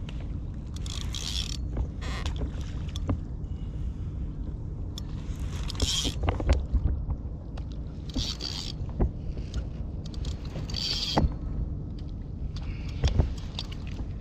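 A fishing reel being cranked and a kayak creaking while a big meagre is played on a bent rod. Clicks and creaks sit over a steady low rumble of water against the hull, with about five short hissing bursts a few seconds apart.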